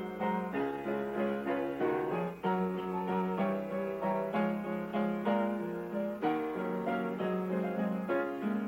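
Instrumental keyboard music: a run of piano-like notes over held low notes, with no singing.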